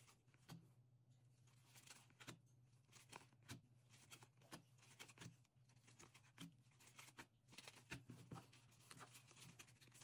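Near silence, with scattered faint clicks and rustles of trading cards being handled and flipped through by gloved hands, over a low steady hum.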